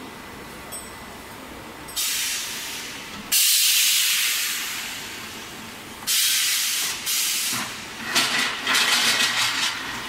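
Pneumatic clamps on an automatic longitudinal seam welding machine venting compressed air as they release the seamed sheet: a series of sudden hisses that each fade away. The loudest comes about three seconds in, and a fluttering run of hisses follows near the end.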